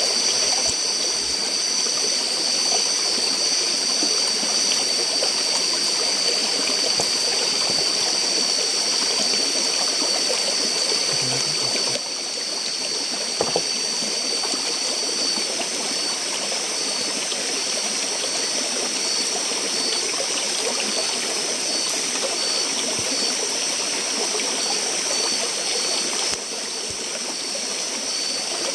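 Steady rushing of flowing water, with a continuous high-pitched insect drone over it that turns pulsing in the second half. The overall level steps down slightly twice.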